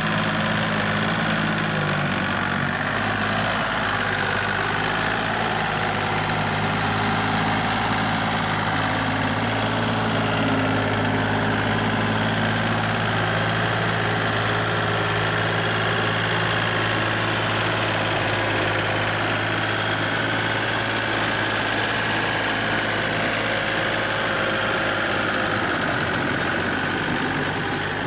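Kubota compact tractor's diesel engine running steadily while pulling a rotary tiller through a wet paddy field.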